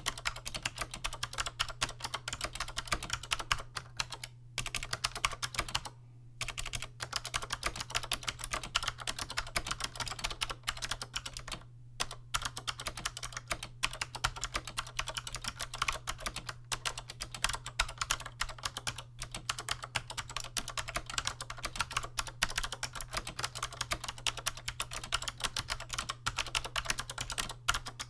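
Continuous typing on a 1993 Chicony KB-5581 keyboard with SMK second-generation "Monterey" clicky switches and PBT keycaps, making light, crisp key clicks, with short pauses about four, six and twelve seconds in. A steady low hum runs underneath.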